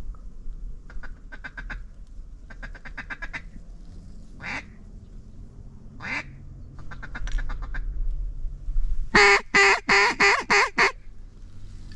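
Mallard-style duck quacking: soft quick chatter and a couple of short whistles, then a loud run of about seven quacks near the end. Low wind rumble underneath.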